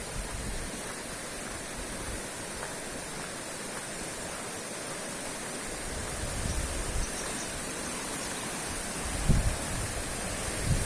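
Steady rushing roar of a fast-flowing river. A few low gusts of wind buffet the microphone near the end.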